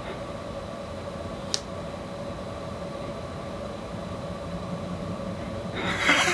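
A steady mechanical hum with a few constant tones, broken by one sharp click about a second and a half in. A louder, rougher noise starts just before the end.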